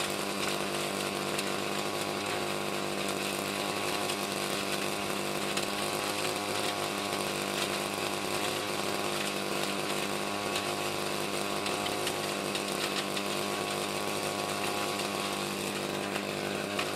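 A motor running steadily at an unchanging speed, a continuous mechanical hum with no breaks.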